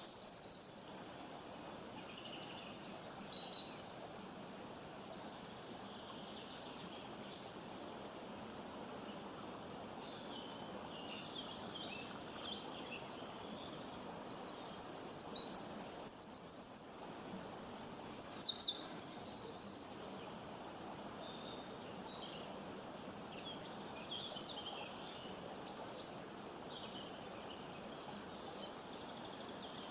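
Small birds chirping: high, rapid trills and chirps. They come loud in the first second and again in a long bout from about 14 to 20 seconds in, with fainter calls in between over a steady background hiss.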